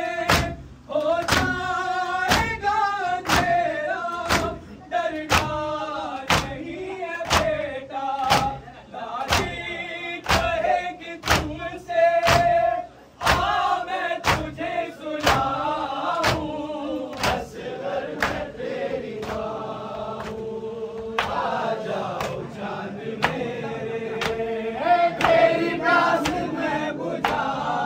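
A group of men chanting a Muharram noha in unison, with steady chest-beating (matam) by hand, a little under two beats a second, keeping time under the voices.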